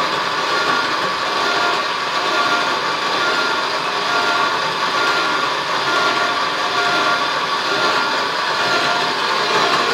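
Battery-powered electric hoist running steadily as it winds its cable to lift a small airplane's tail. A steady motor whir carries a faint whine that comes back about once a second.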